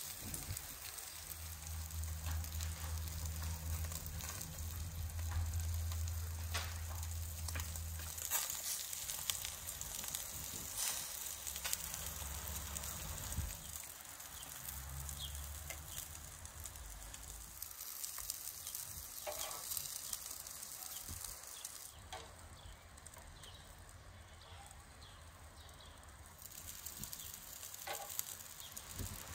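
Lamb intestines (kokoreç) sizzling over a wood fire, with a steady hiss and scattered crackles. A low hum runs through roughly the first half.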